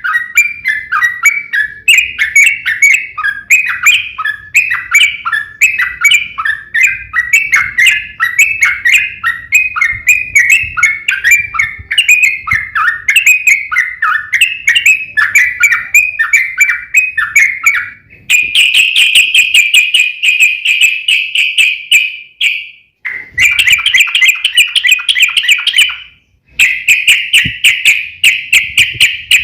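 Yellow-vented bulbul (trucukan) singing its loud, rapid chattering song in repeated phrases. About two-thirds of the way in it switches to a faster, higher, unbroken trill, which stops briefly twice. The song is the bird's excited fighting song, used as a lure to make other bulbuls answer.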